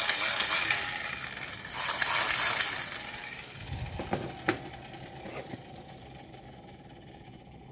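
Fast clicking rattle of a plastic toy gun's inner gear mechanism, fading out over the first three seconds. It is followed by a few sharp plastic clicks as toys are set down and picked up.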